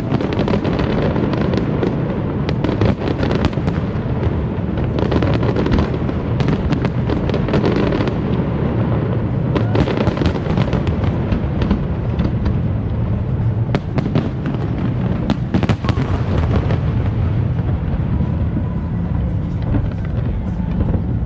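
Aerial fireworks display: many loud bangs in quick, overlapping succession over a steady low din.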